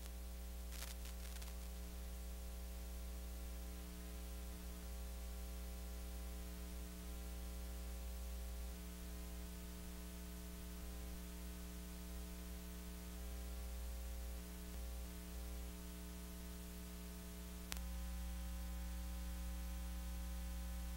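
Steady electrical mains hum with a ladder of buzzing overtones under an even hiss: the recording's own background noise with nothing else playing. A faint crackle comes about a second in. A sharp click comes near the end, after which the hum is a little louder.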